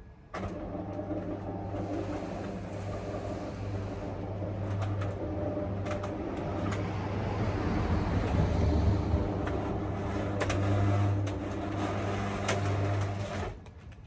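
Electric roller shutter garage door motor running as the aluminium-louvred door rolls down, a steady hum with the slats clicking and rattling as they unroll. It starts about half a second in and stops suddenly near the end, the door halted just before the bottom.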